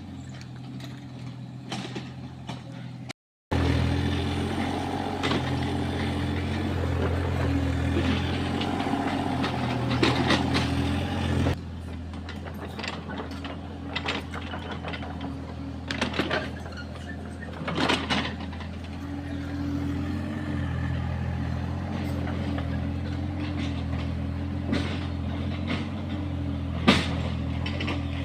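Excavator's diesel engine running steadily, its level drops a little about a third of the way through. A few sharp knocks stand out over it.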